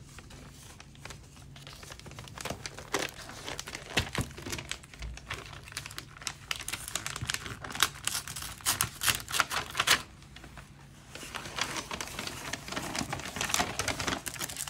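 White paper gift wrapping being unfolded by hand, crinkling and rustling in quick irregular crackles, with a short lull about ten seconds in.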